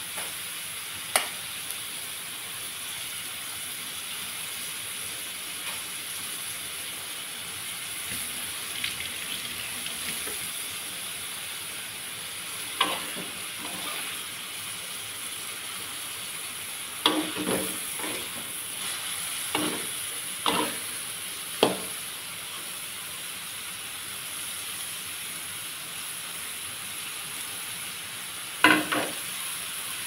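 Minced pork, egg, tomato and onion frying in a wok with a steady sizzle. A metal spatula scrapes and knocks against the wok several times, most of them in the second half.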